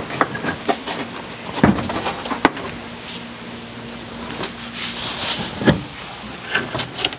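Scattered knocks, clunks and rustles from hands working a Geo Tracker's top panel loose from inside the cab. There are a couple of sharp knocks around two seconds in and another clunk near six seconds, with a faint low hum underneath in the middle.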